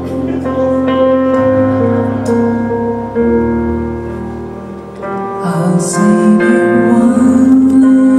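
A live band playing a slow number, with held keyboard chords over a bass line. A voice starts singing over it about two thirds of the way in.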